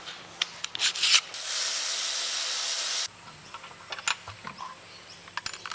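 Hand tools working on a car's throttle body while it is being taken apart: scattered metal clicks and taps. A loud, even hiss starts abruptly about a second and a half in and cuts off sharply about a second and a half later.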